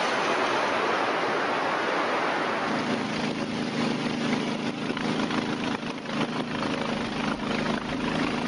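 Rushing river water, joined about three seconds in by a boat's motor running steadily.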